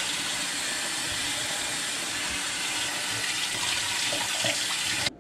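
Kitchen faucet running steadily into a stainless steel sink, the stream splashing over fish fillets being rinsed by hand. The water shuts off abruptly near the end.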